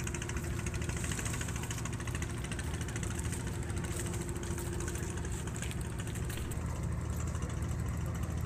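Boat engine idling steadily: a low, even hum.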